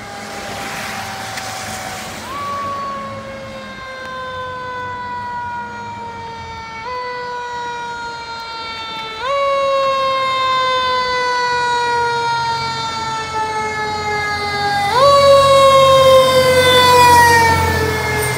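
Fire engine siren approaching and passing close by: a tone that jumps up sharply and slowly slides down, over and over at uneven intervals, growing louder as the truck nears. The truck's engine rumbles underneath it near the end.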